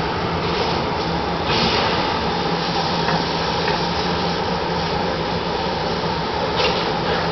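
Steady vehicle or traffic noise: a constant low hum under an even hiss, with brief swells of hiss about a second and a half in and again near the end.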